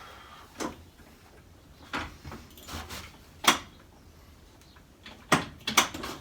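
A scatter of separate knocks and clicks, the loudest about three and a half seconds in and a quick cluster near the end, with no engine cranking: the school bus's diesel is not turning over.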